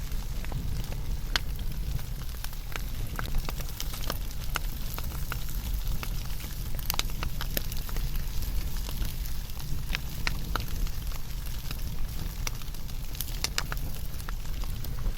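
Wood fire burning, with frequent irregular crackles and sharp pops over a steady low rumble and hiss of the flames.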